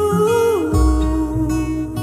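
Background song with acoustic guitar, a held melody note stepping down in pitch about half a second in.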